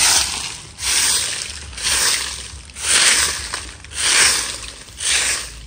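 Stiff-bristled broom sweeping dry fallen leaves over bare earth: a rhythmic swish about once a second, six strokes.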